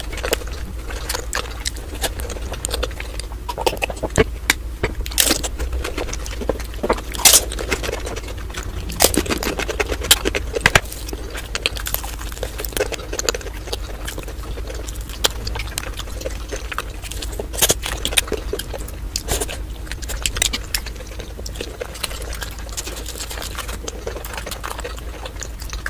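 Close-miked chewing and mouth sounds of someone eating momo and fried chicken: irregular wet smacks and clicks, over a low steady hum.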